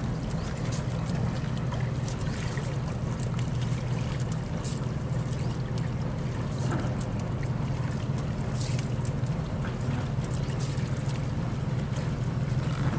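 A large engine running steadily with a low, even hum, with scattered light clicks and knocks over it.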